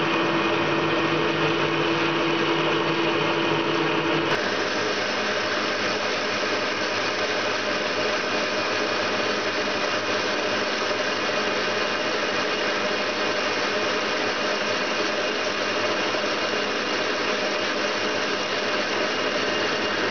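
Metal lathe running: for the first four seconds a large twist drill bores into the centre of the spinning backplate disc with a steady tone, then the sound changes abruptly to the steady noise of a lathe tool cutting at the disc's centre bore.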